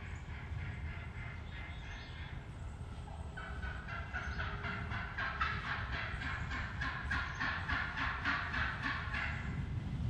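Wild turkey calling: a long, fast run of sharp repeated yelping notes that starts a few seconds in and grows louder, over a low rumble of wind or handling noise.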